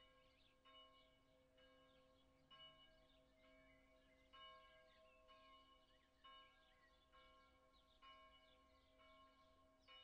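Faint, distant church bell tolling, struck about once a second, each stroke ringing out over the steady hum left by the strokes before it.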